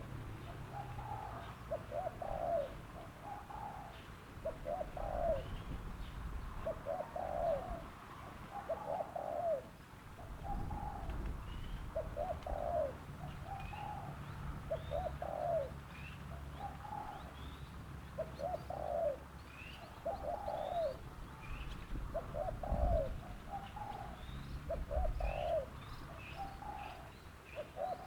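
Spotted dove (terkukur) cooing over and over, short phrases of a few notes coming every second or two. Small birds chirp faintly and high-pitched in the background.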